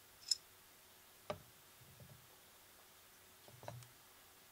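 Faint metallic clicks and taps of a SIG P230 pistol's small steel parts, the decocking lever and sear assembly, being worked free of the frame and handled. There is a sharp click about a third of a second in, another about a second later, a few soft ticks, and a short cluster of taps near the end.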